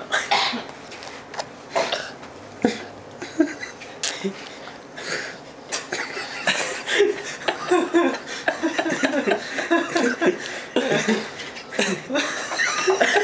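A toddler eating chocolate cake face-first: wet smacking and slurping mouth noises with sharp clicks, then short murmured hums and grunts through the second half.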